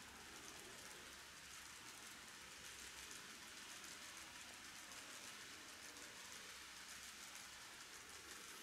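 Faint, steady hiss and fine rapid clatter of N-gauge model passenger cars' wheels rolling over curved track.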